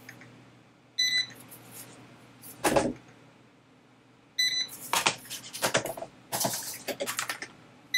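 Handheld barcode scanner beeping twice, about a second in and again about four and a half seconds in, as parts are scanned into inventory, with rustling and knocking of the parts being handled between the scans.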